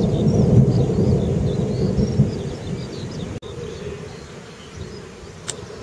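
Rolling thunder rumbling low and dying away over a few seconds, with faint high chirps above it.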